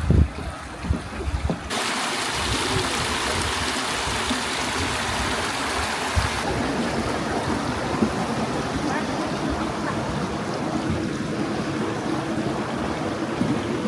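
Steady rushing of running water, brighter and hissier from about two seconds in until about six and a half seconds in.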